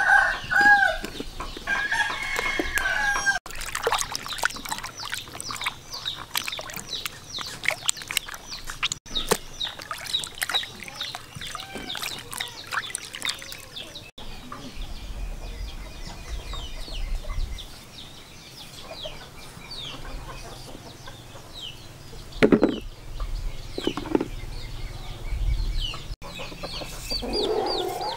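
Chickens clucking and a rooster crowing, over a dense high chirping, with a couple of sharp knocks late on.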